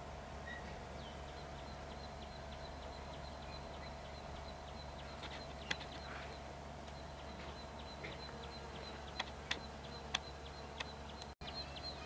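Small birds chirping in quick short notes over a steady insect hum, with a few sharp clicks in the second half and a momentary dropout near the end.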